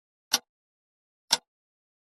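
Clock ticking, one sharp tick each second with silence between; two ticks.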